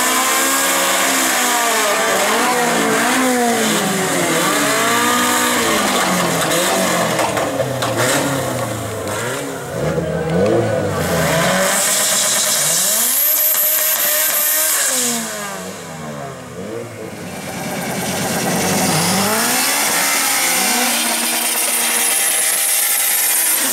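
Small four-cylinder import car engines revving hard during drag-strip burnouts. The pitch climbs and drops again and again as the drivers work the throttle, over the hiss of spinning tyres.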